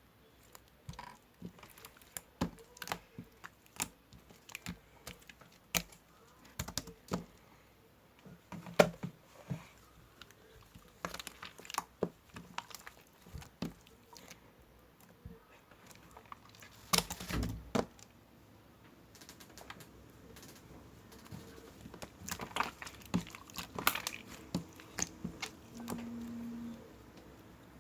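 Irregular light clicks and taps, like typing or tapping on a hard surface. Past the middle comes a louder rustling stretch of about a second, and near the end a brief steady low hum.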